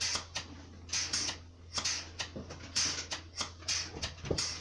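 Bucket milking machines running: a steady low hum from the vacuum line, with the pulsators hissing and clicking in a regular rhythm about once a second.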